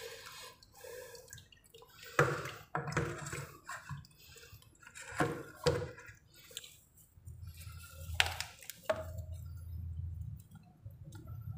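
Water dripping and trickling into a flooded hole around a leaking plastic water pipe, with about six sharp knocks and clicks as the pipe and its fittings are handled.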